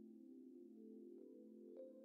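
Faint background music of soft, sustained bell-like tones, with a new note struck about a second and a half in.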